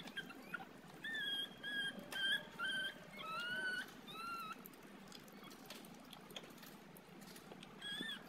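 Young puppy whimpering: a quick run of about seven short, high whines over a few seconds, one of them longer and wavering, then a single whine again near the end.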